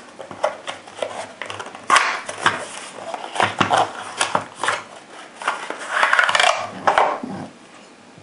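Cardboard cartridge box being opened by hand: rustling and clicks as the end flap is pulled open and the plastic tray of rifle cartridges is slid out. The handling noise stops near the end.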